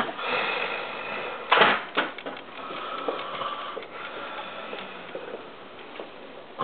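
A sleeping person snoring, with one loud snore about one and a half seconds in.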